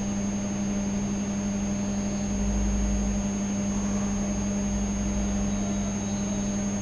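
Steady electrical hum with a constant faint high-pitched whine above it, and a low rumble that swells twice. No speech.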